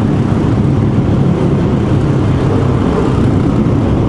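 Dual-sport motorcycle engine running steadily at cruising speed inside a road tunnel, with wind and road noise.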